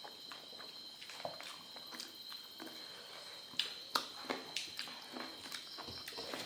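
A person eating a meal of rice and fish curry: soft chewing and mouth smacks with scattered small clicks, a few louder ones around the middle.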